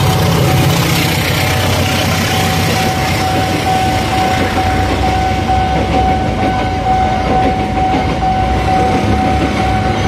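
A passenger train passing at speed over a level crossing: a GE diesel-electric locomotive's engine rumbles at first, then the coaches' wheels rush and clatter over the rails. A steady ringing tone from the crossing's warning signal sounds throughout.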